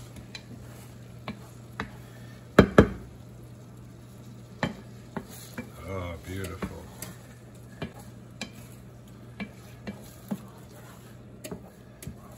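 A wooden spatula stirring beaten eggs and sliced zucchini in a frying pan, the eggs sizzling gently as they set, with scattered taps of the spatula against the pan. Two louder knocks come a little under three seconds in.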